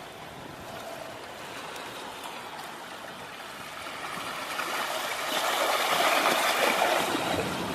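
Rushing, splashing water, growing louder about halfway through.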